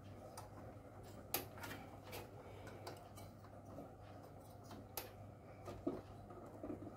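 A handful of faint clicks and light taps, scattered and irregular, the sharpest about a second and a half in and again about five seconds in, from hands working a CPU cooler's plastic push-pin mounts into the motherboard.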